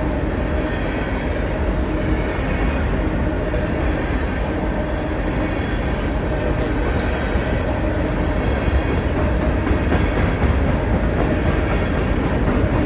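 Train passing with a steady rumble and rail noise, growing slightly louder in the second half.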